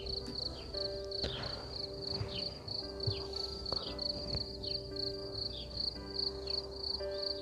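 Cricket chirping steadily, a high, evenly pulsed song, over soft background music.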